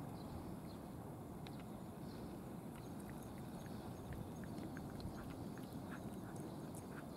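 Two cats chewing food from a plastic dish: small irregular clicks and smacks, faint over a steady low outdoor rumble.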